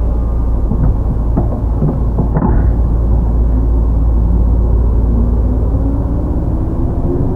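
Inside a Tobu 10030-series field-chopper electric train while it runs: a loud, heavy rumble with a few sharp clacks in the first three seconds, then a hum from the traction motors that rises in pitch from about five seconds in as the train picks up speed.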